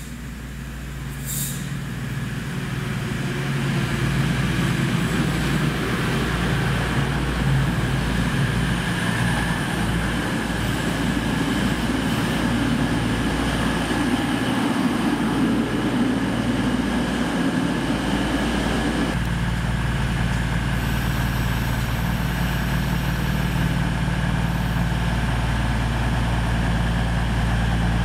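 Class 222 Meridian diesel multiple unit pulling into the platform, its rumble growing louder over the first few seconds as it comes in. About two-thirds of the way through the sound changes abruptly to a steady diesel engine hum.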